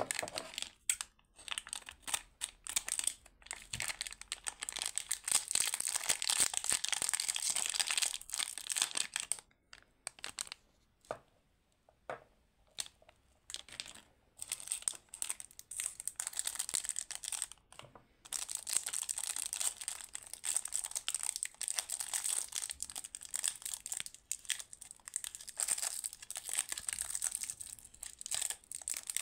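Plastic lollipop wrappers crinkling and tearing as they are handled and opened by hand: first a Chupa Chups wrapper, then the clear cellophane wrapper of a watermelon-shaped lollipop. Dense crinkling for about the first third, a sparser middle stretch of small taps and rustles, then steady crinkling again.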